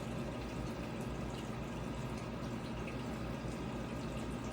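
Steady aquarium water noise: the tank's filter or water return trickling and humming without a break.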